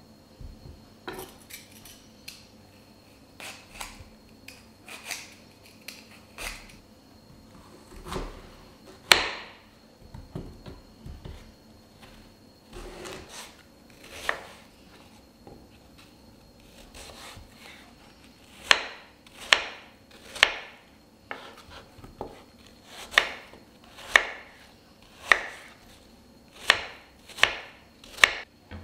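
Kitchen knife cutting apple on a wooden cutting board. The first half holds scattered, softer cuts and knocks. About two-thirds of the way in comes a run of sharp, regular chops, roughly one a second, as the peeled apple is diced.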